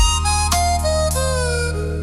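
Slow blues harmonica instrumental: the harmonica plays a falling run of notes, bending down in pitch about halfway through, over a steady low bass accompaniment.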